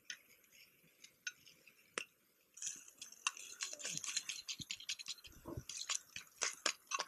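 A metal utensil scraping and stirring ground lamb in a small pan over a crackling wood fire. A few faint clicks come first, then busy clicks and scrapes from about two and a half seconds in.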